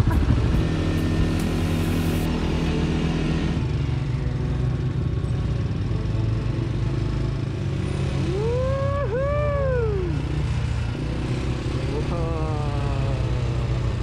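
CFMoto CForce 400 ATV's single-cylinder four-stroke engine running steadily as the ATV rides along. Between about eight and ten seconds in, a voice calls out twice, its pitch rising then falling.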